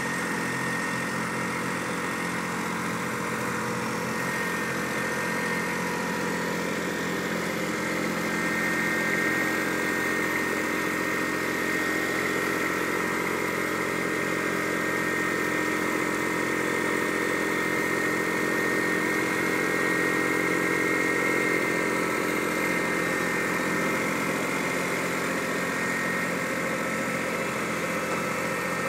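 Compact utility tractor's engine idling steadily.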